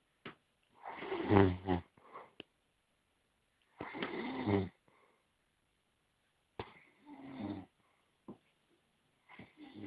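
Heavy, deep snoring: four long snores about three seconds apart, with near silence between breaths.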